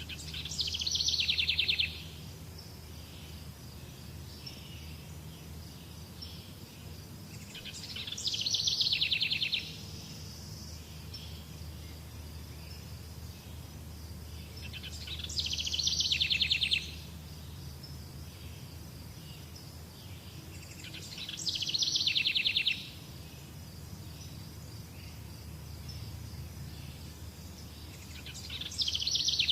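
A songbird repeating the same song, a fast trill falling in pitch, five times at roughly seven-second intervals, over a faint steady insect hum and a low rumble.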